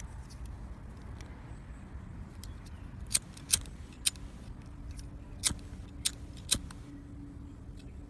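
Six sharp, irregularly spaced clicks of small hard metal and plastic parts knocking together in the hands, starting about three seconds in, over a steady low rumble.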